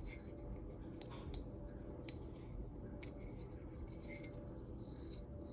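Faint clicks and rubbing from small parts being handled: a rubber O-ring being worked onto a plastic turbo inlet. A handful of separate light ticks sound over a steady low background hum.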